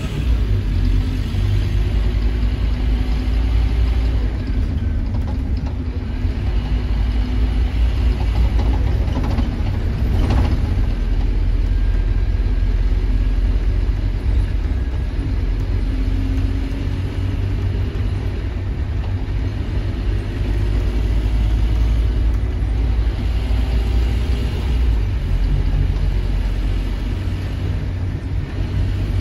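Scania OmniLink single-deck bus heard from inside the passenger saloon while under way: a steady low rumble from its diesel engine and running gear. One brief sharp sound about ten seconds in.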